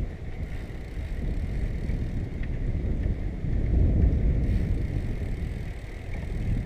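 Wind rushing over the microphone of a camera on a moving bicycle: a steady low rumble, with a faint thin high tone running through it.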